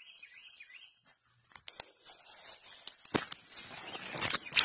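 Rustling in grass and handling noise with a few sharp clicks, getting louder near the end. A bird chirps repeatedly in the first second.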